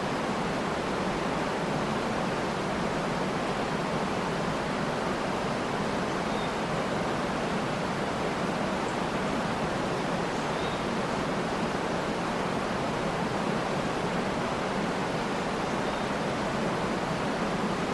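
Waterfall pouring in a steady, even rush, with a few faint bird chirps now and then.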